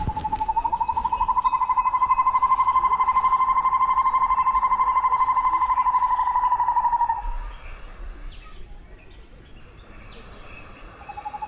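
A loud, rapidly pulsing trill held at one steady pitch for about seven seconds, then stopping, from a forest animal; a few faint high chirps follow.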